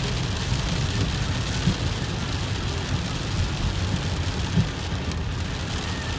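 Rain hitting a car's windshield and roof over the steady low rumble of the car driving on a wet road, heard from inside the cabin.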